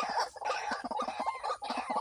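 White-breasted waterhen (ruak-ruak) calling: a dense, unbroken run of short, harsh repeated notes.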